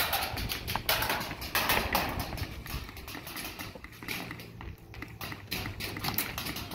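Airsoft guns firing: a rapid, irregular run of sharp clicks and taps, with BBs smacking against the bunkers.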